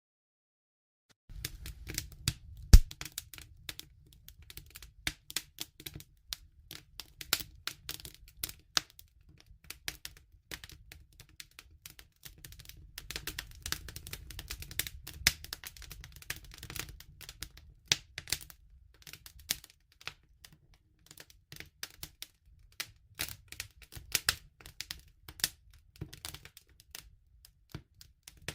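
Campfire crackling and popping in quick irregular snaps over a low steady rumble of the flames, with one loud crack about three seconds in. The sound starts abruptly about a second in, after a moment of silence.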